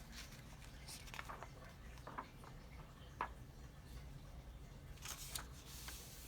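Faint rustling of paper with a few soft clicks, as a picture book's page is handled and turned.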